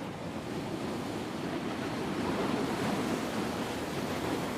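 Ocean surf: a steady wash of breaking waves that swells a little toward the middle.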